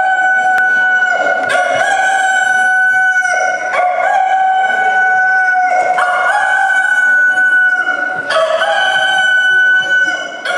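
Rooster crowing over and over, one long crow about every two seconds.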